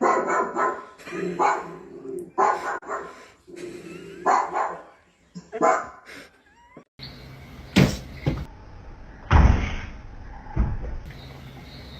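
A dog barking again and again, a string of loud barks over about seven seconds. Then, after a cut, a few sharp thumps.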